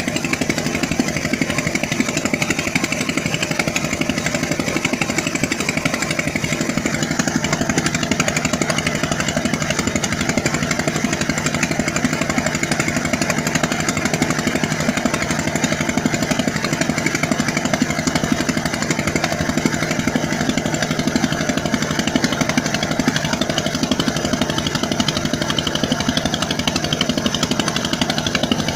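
A steady, fast-pulsing motor-like buzz that holds one pitch throughout, like a small engine running at constant speed.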